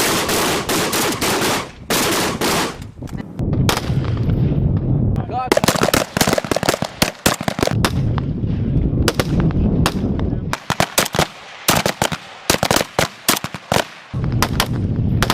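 Foreign assault rifles firing on a range, several rifles at once. There are bursts of automatic fire near the start and again about a third of the way in, then quick strings of single shots with short gaps through the last third.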